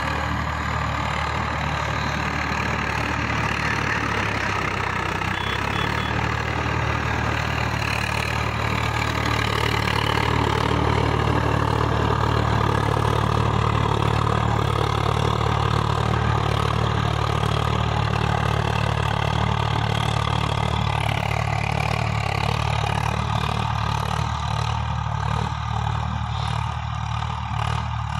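Swaraj 855 FE tractor's three-cylinder diesel engine running steadily under load while tilling dry soil. It grows a little louder around the middle, where the tractor passes nearest, and eases off again toward the end.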